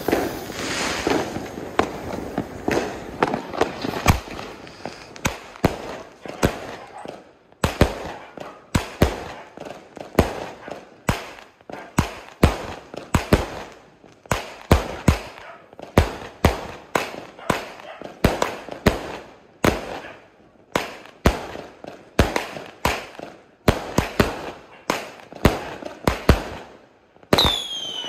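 LCM 25-shot firework cake firing: a long, rapid series of sharp bangs from shots launching and bursting, one after another, with a falling whistle near the end.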